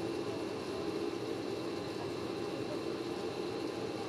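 Steady machinery hum with faint high, constant whines, unchanging throughout.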